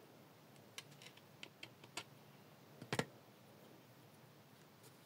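Faint small clicks and taps of fingers and a thin modelling tool working a piece of plasticine on a modelling board, with one sharper knock about three seconds in.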